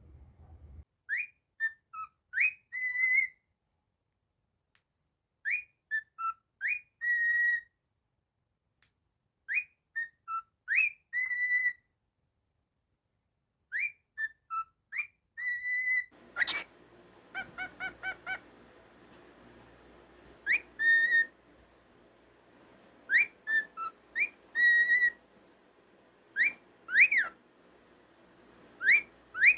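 Cockatiel whistling the same short tune over and over, about seven times. Each phrase is a few quick rising notes ending on a held note. Faint background noise comes in about halfway through.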